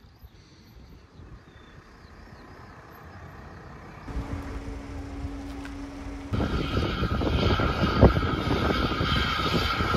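Narrow-gauge steam locomotive Southern 762 'Lyn' running with its train of carriages, growing louder, with a sudden step up in level about six seconds in and a sharp knock a little after.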